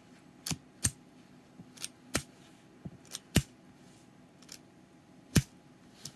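Sharp metal clicks from a miniature 1:3-scale metal 1911 pistol keychain as its mechanism is worked by hand. There are about ten irregular clicks, some in quick pairs, the loudest two about midway and near the end.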